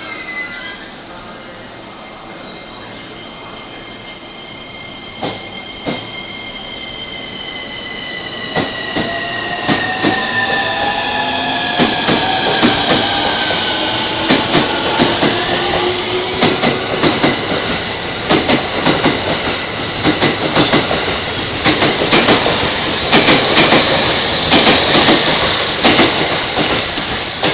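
JR E231 series electric commuter train pulling out and gathering speed past the platform. A traction-motor inverter whine glides in pitch, then wheel clatter over rail joints grows faster and louder toward the end. A brief high sound comes at the very start.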